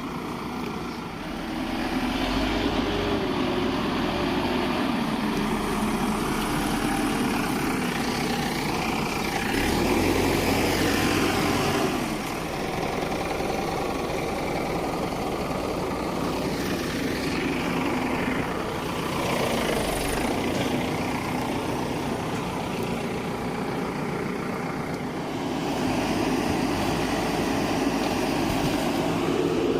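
Escorts Digmax II backhoe loader's diesel engine running, its revs rising and falling as it works.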